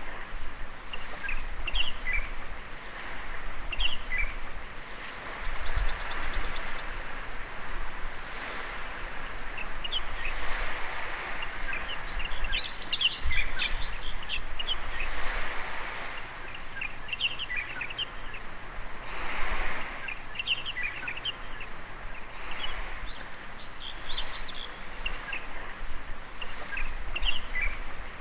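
Small waves washing on a sandy beach, the wash swelling and falling every few seconds, with birds chirping over it throughout, including a quick run of chirps about five seconds in.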